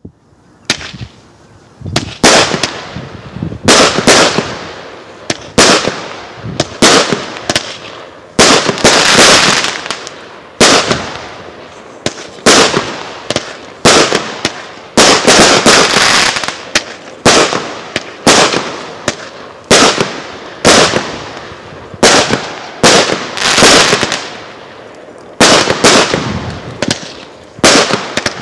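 Heron Cake 11 consumer fireworks cake (multi-shot battery) firing shot after shot, roughly one to two a second. Each shot is a sharp bang trailing off in a hiss.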